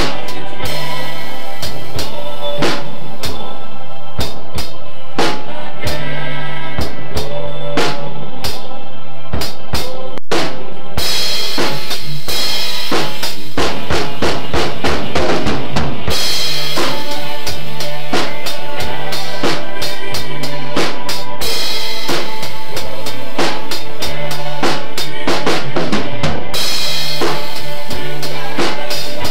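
Acoustic drum kit played loudly and continuously: bass drum, snare and cymbals in a steady rock beat.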